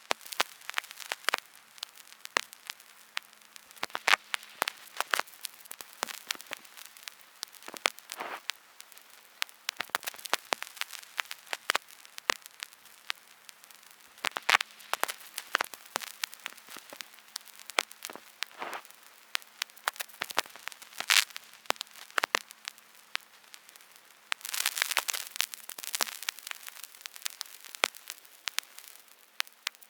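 Vinyl record surface noise: irregular clicks and pops over a faint hiss, with a faint steady hum underneath. A denser patch of crackle comes about 25 seconds in.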